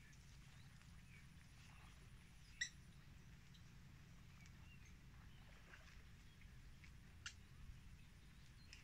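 Near-silent marsh ambience: a faint low rumble with scattered faint bird chirps, and two sharp clicks, one about a third of the way in and one near the end.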